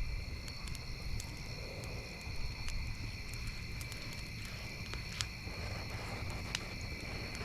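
Campfire crackling, with sharp pops now and then, over a steady chorus of insects.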